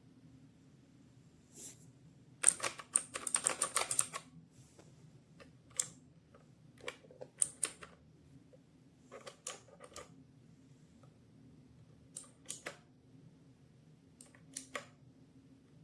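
Typing on a MageGee 75% mechanical keyboard with red switches. A quick run of keystrokes comes about two and a half seconds in, followed by scattered single and paired key presses.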